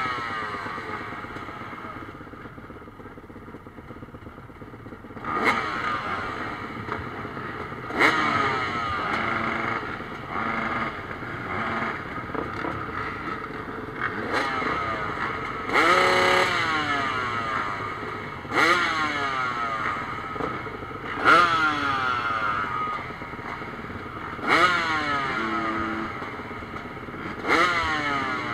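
Motocross bikes idling at the start gate, their engines blipped in sharp revs every two to three seconds, each rev rising and falling back to idle. The revving holds off for the first few seconds, then comes again and again until the end.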